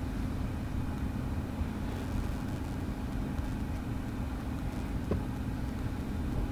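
Steady low rumble with a faint hum inside a Tesla Model 3's cabin as it reverses slowly under Autopark, with a faint click about five seconds in.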